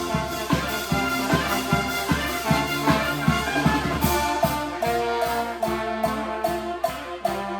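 Charanga street brass band playing an electronic dance tune arranged for brass and drums, over a steady drum beat. About four seconds in, the low drum strokes drop out, leaving long held brass chords over a lighter, ticking beat.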